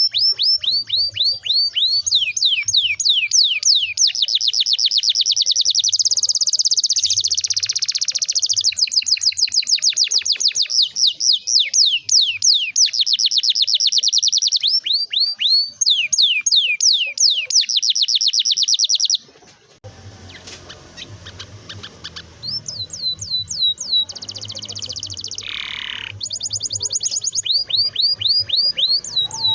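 Domestic canary singing a long, rapid roll of quickly repeated downward-sweeping whistled notes. About two-thirds of the way through the song cuts off abruptly. A quieter recording with background noise follows, with shorter canary phrases coming back near the end.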